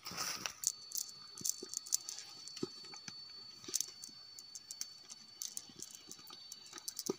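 Irregular rustling and light clicking of a nylon cast net being handled as small fish are picked out of its mesh, with its lead sinkers knocking now and then.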